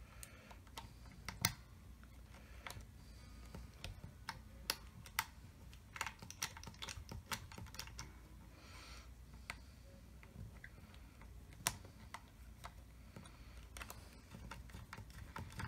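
Small screwdriver working the intonation screw of an electric guitar's bridge saddle: faint, irregular metal clicks and taps as the screw and saddle go back in.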